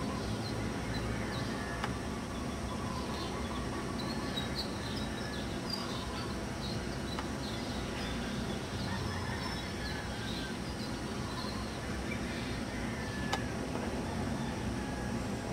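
Small birds chirping on and off over a steady low background rumble, with one sharp click near the end.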